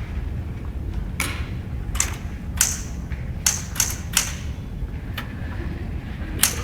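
Typewriter keys struck one at a time at uneven intervals, about seven sharp clacks over a steady low hum.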